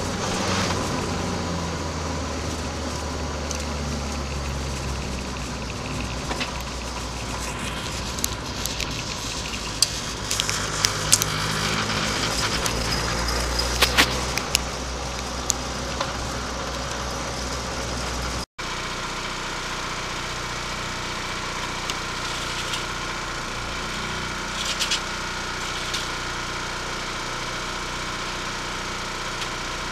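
Škoda Fabia RS TDI's diesel engine, heard inside the cabin, running at low revs with scattered clicks and knocks. About two-thirds of the way through, the sound cuts out for an instant, then the engine idles steadily.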